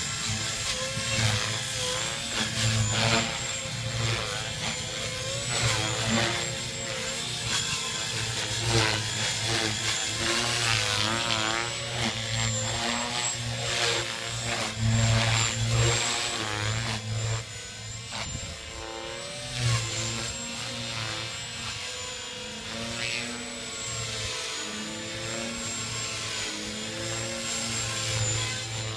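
Electric RC helicopter (Gaui X3 with a Scorpion 2520 brushless motor and 360 mm HALO main blades) flying 3D aerobatics. Its rotor blades chop and its motor whines, and the pitch and loudness rise and fall as it changes attitude.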